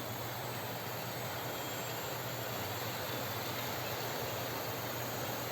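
OO gauge model locomotive running along the track, heard from a small camera riding on it: a steady low hum with an even hiss.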